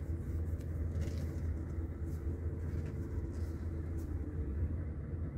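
Scania truck's diesel engine running at a steady low rumble, heard from inside the cab as the truck reverses slowly.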